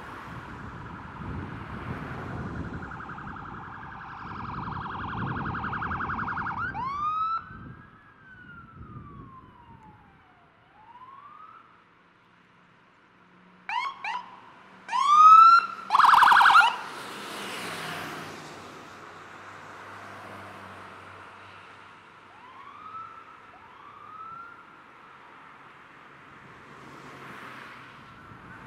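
Electronic emergency sirens of responding fire-department vehicles: a fast yelp for the first several seconds, then a slow wail that falls and rises again, then a run of short rising whoops. A loud blast about sixteen seconds in is the loudest sound, and fainter whoops follow.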